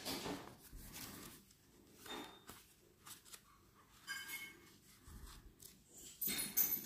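Soft paper rustles and flicks as the pages of a small paperback guidebook are leafed through by hand. A brief high-pitched whine comes about four seconds in, and a louder one near the end.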